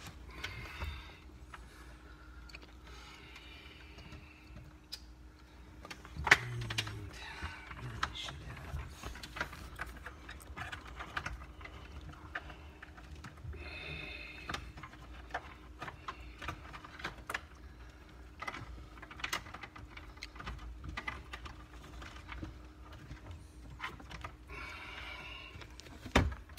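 Hands working wiring harnesses and plastic trim inside a car dashboard: scattered clicks, taps and rustling, with a sharper knock about six seconds in. A faint steady hum runs underneath.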